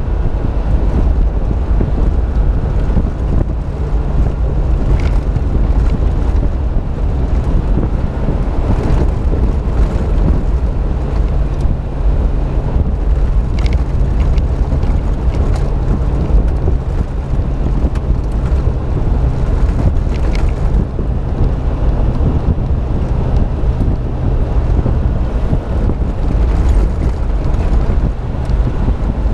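Suzuki SJ413 four-wheel-drive driving at steady speed, its engine droning evenly over low road rumble, with heavy wind buffeting the microphone. A few faint clicks, such as body rattles, come through now and then.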